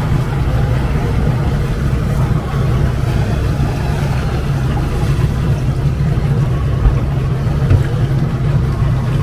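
Engine of a ketinting longtail motorboat running steadily under way, a loud, continuous low drone.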